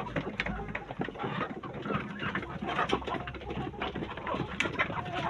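A flock of 5-month-old black Australorp chickens clucking and calling over one another, with many short clicks mixed in.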